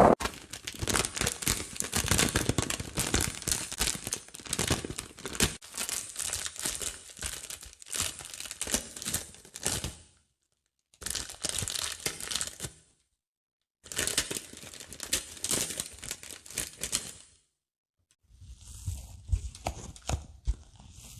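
Dry sponge crackling and crinkling as it is worked by hand, in crisp bursts. It stops briefly a few times after about ten seconds and turns softer and duller near the end.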